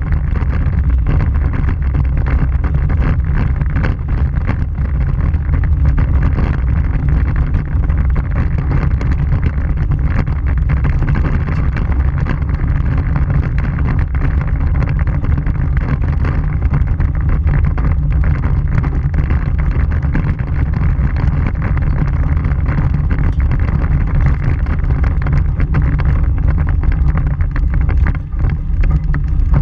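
Vehicle driving on a gravel dirt road, picked up by a camera on its front bumper: a steady low rumble of the vehicle and its tyres on the gravel, with wind on the microphone.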